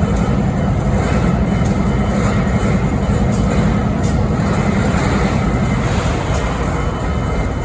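BNSF 5910 diesel locomotive idling with a loud, steady low rumble, the idle that is said to carry a strange noise. Its deep drone eases slightly about six seconds in.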